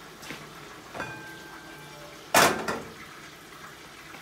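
Kitchen clatter while the pot of boiled macaroni is readied to be drained: a light clink with a brief metallic ring about a second in, then one loud knock a little past halfway.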